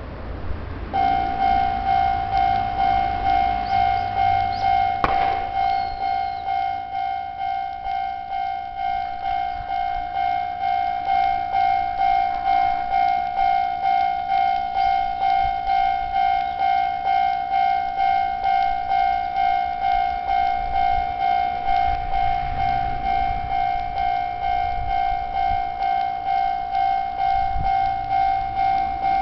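Electronic level-crossing warning bell ringing: a steady ding repeating about twice a second, starting about a second in, the signal that a train is approaching the crossing.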